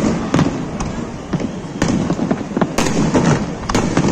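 Aerial firework shells bursting in a string of sharp bangs at irregular intervals, over a continuous rumble of further explosions.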